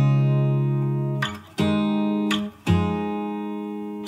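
Background music: an acoustic guitar strumming three ringing chords, each left to fade before the next.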